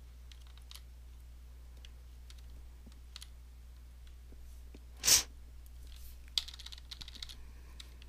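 Computer keyboard keys clicking now and then, with a quick run of clicks near the end, over a low steady hum. One louder, short burst of noise about five seconds in.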